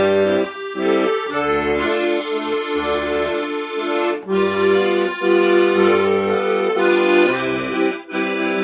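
Accordion left hand playing an oom-pah bass-and-chord accompaniment, single bass notes alternating with chords, with the third beat joined smoothly into the first beat of the next bar instead of played detached. Brief breaks come about four seconds in and near the end.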